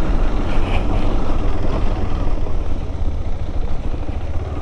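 KTM 390 Adventure's single-cylinder engine running as the motorcycle rides a wet dirt trail and slows down, a steady low rumble mixed with tyre and road noise.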